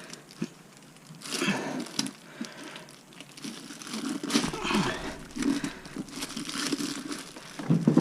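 Bouts of rubbing and crinkling handling noise with a few small knocks, as a rubber tire is worked by hand over the rim of a Onewheel Pint hub motor.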